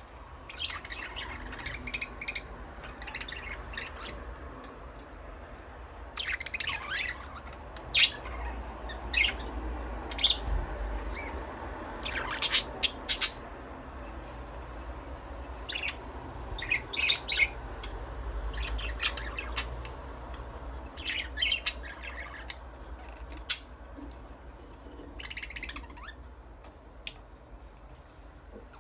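Budgerigars chirping and chattering, with scattered short sharp calls and brief bursts of warbling throughout, a few louder squawks among them.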